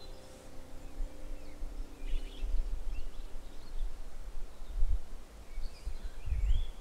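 Outdoor ambience of several birds giving short chirps and calls, over irregular low rumbles that are loudest near the end.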